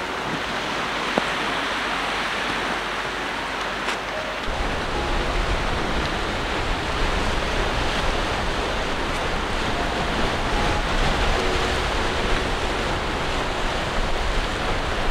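Waves washing and breaking on a rocky shore, a steady rushing noise. About four seconds in, a deep rumble joins it and stays.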